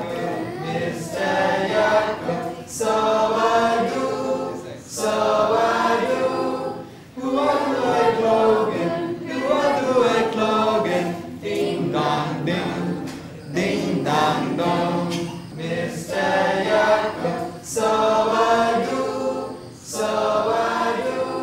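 A class of students singing a song together without accompaniment, in phrases of about two seconds with short pauses between them.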